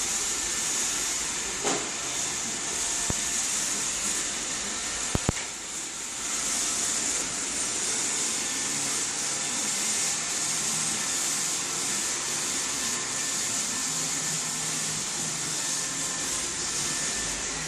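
Robot vacuum running with a steady whirring hiss. A few sharp clicks or knocks break in, two of them close together about five seconds in.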